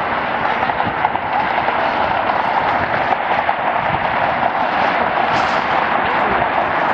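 Airliner jet engine noise: a loud, steady rushing sound that holds without a break.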